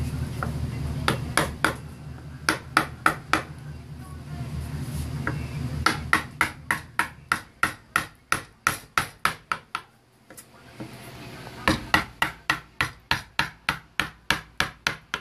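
Wooden mallet striking a carving gouge as it cuts flutes into the wooden border of a relief carving: sharp knocks, a few scattered at first, then two steady runs of about four a second with a short pause between them. A low hum underneath fades out about halfway through.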